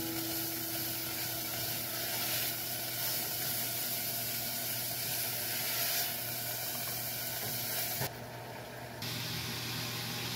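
Food sizzling in a saucepan on an electric stove as it is stirred with a wooden spoon: a steady hiss that drops away for about a second near the end.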